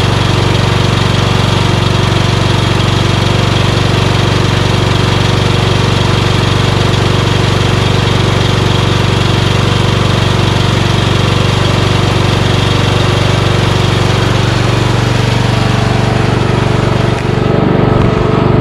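Briggs & Stratton 15.5 hp engine of an MTD Yard-Man lawn tractor running steadily, a loud even drone with a brief dip near the end.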